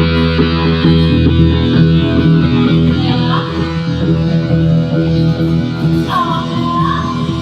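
Rock music with electric guitar and bass playing sustained chords; a higher melodic line comes in about six seconds in.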